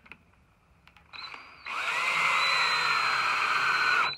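Cordless drill driving a wood screw with a square Robertson No. 2 bit into a pre-drilled hole in a wooden rack arm. A short light spin comes about a second in, then a longer run of about two and a half seconds whose whine drops slightly in pitch and stops suddenly near the end.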